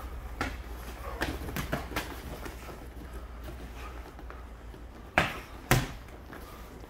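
Boxing gloves landing punches in sparring: a few light thuds in the first two seconds, then two louder hits about half a second apart near the end.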